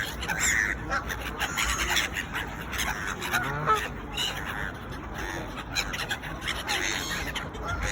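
A flock of park waterfowl (ducks and geese) calling, with many short, overlapping calls throughout.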